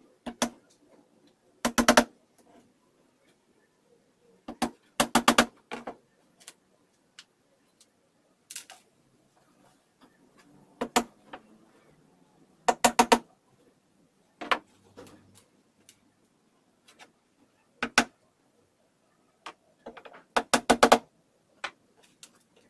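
Hammer striking on a plywood door panel in quick bursts of two to five light taps, each burst ringing briefly, with pauses of a second or more between them.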